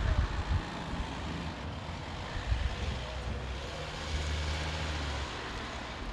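Road vehicles driving past: a fire service van passes close by with engine drone and tyre noise, loudest about four seconds in, with no siren sounding.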